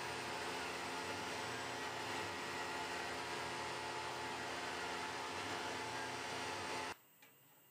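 CNC milling machine spindle running while an end mill cuts a brass workpiece: a steady machine hum with hiss and several fixed tones. It cuts off abruptly about seven seconds in, leaving near silence.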